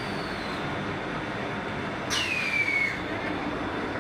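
Automatic L-bar sealer and heat shrink tunnel running with a steady machine hum, broken about halfway by a sharp click and then a short squeal that falls in pitch.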